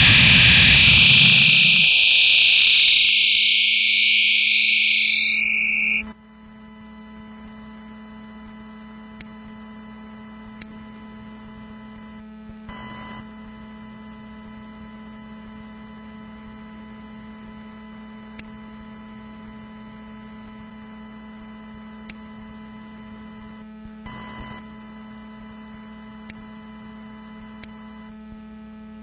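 Synthesized noise rendered from a drawing by Coagula image-to-sound software: loud bands of hiss that shift upward in pitch and cut off suddenly about six seconds in. After that comes a steady electrical hum with faint fixed tones.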